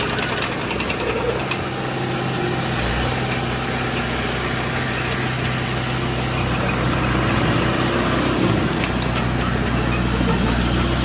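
Diesel engine of a heavy construction machine running steadily, its low hum growing stronger about three seconds in.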